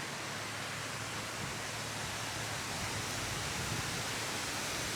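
Steady outdoor noise hiss, even throughout, with no distinct events.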